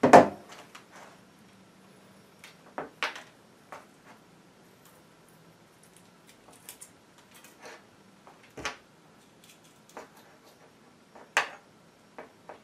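Scattered small clicks and taps of a coaxial cable and plug being handled while a coaxial plug is fitted to the cable end, with a louder knock right at the start and a sharp click about eleven seconds in.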